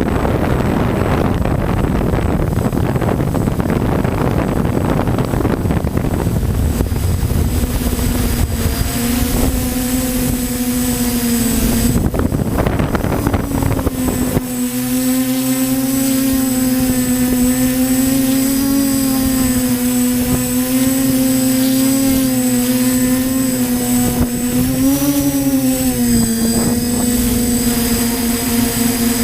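TBS Discovery quadcopter's brushless motors and propellers hum steadily, the pitch wavering slightly and rising briefly near the end. For the first several seconds wind rumbles on the microphone and covers the hum.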